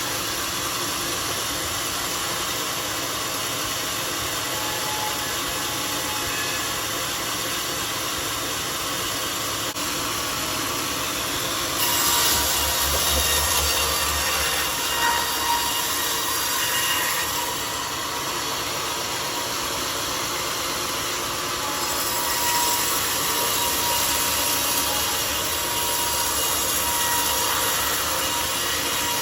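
Homemade sawmill running with its blade cutting through a mahogany log: a steady machine drone and sawing hiss, which gets louder and brighter about twelve seconds in and again from about twenty-two seconds.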